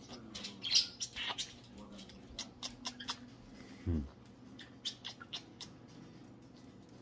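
Small pet parrots (conures and a quaker parrot) perched together: a short, harsh, high squawk about a second in, with scattered small clicks and scratches throughout.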